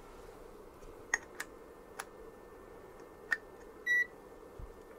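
A few light clicks, then a single short high-pitched beep from a digital test meter about four seconds in, followed by a soft thump.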